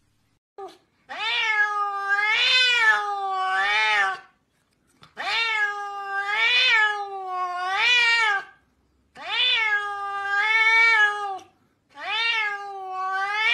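A domestic cat meowing in four long, drawn-out calls, each wavering up and down in pitch, with short pauses between them.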